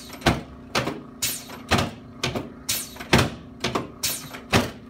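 A regular series of sharp knocks, about two a second, made during a chiropractic adjustment, over a steady low hum.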